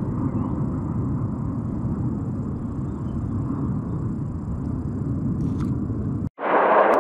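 Low, steady rumble of the Thunderbirds' and Blue Angels' jets flying over. It cuts off abruptly about six seconds in, and a louder rushing noise follows.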